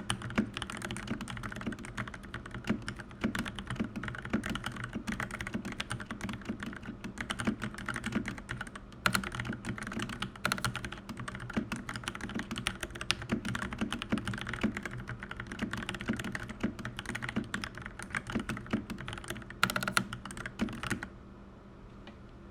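Continuous fast typing on a Keychron C1 mechanical keyboard with Gateron brown switches, a dense run of key clacks that stops about 21 seconds in. A low steady hum runs underneath.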